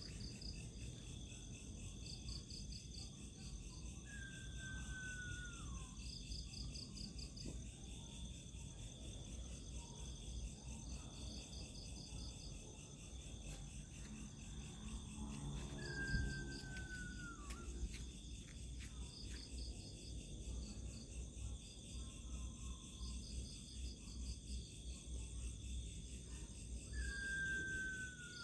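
Night insects, crickets among them, calling: a steady high drone with short pulsed trills repeating every second or two. Three times a single falling whistle, about a second and a half long, cuts through, like a night bird's call.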